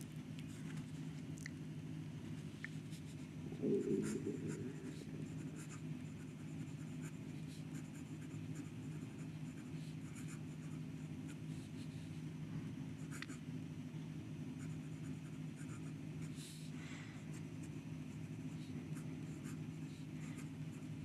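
Pelikan M200 fountain pen with a gold-plated steel fine nib writing on lined notebook paper: faint, short scratches of the nib on the page as the letters are formed, over a steady low hum. There is a soft bump about four seconds in.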